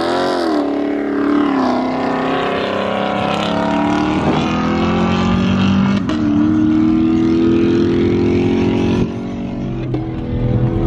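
Supercharged V8 muscle-car engine revving hard as the car drifts, its pitch swinging up and down sharply near the start, then an engine climbing steadily in pitch under acceleration for several seconds. The sound dips in loudness near the end.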